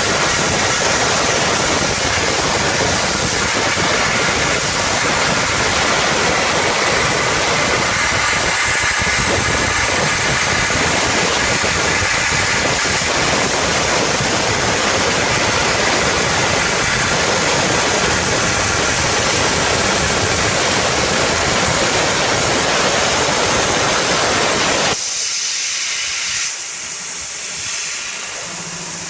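CNC plasma torch cutting steel plate: a loud, steady hiss of the plasma arc and air jet. About 25 seconds in the arc cuts off and the sound drops abruptly to a fainter high hiss, with a steady low hum near the end.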